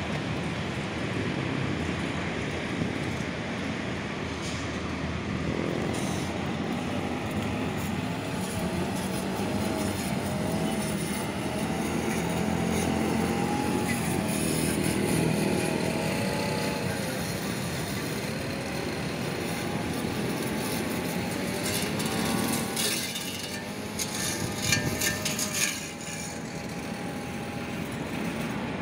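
Road traffic with motorcycle engines passing: a steady rumble, with engines rising and falling in pitch now and then.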